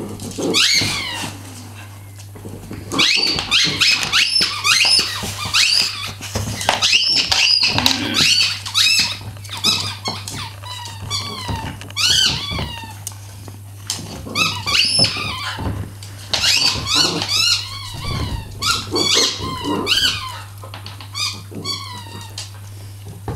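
Dog's squeaky toy squeaked again and again as dogs chew it: short high-pitched squeaks in quick runs with brief pauses between.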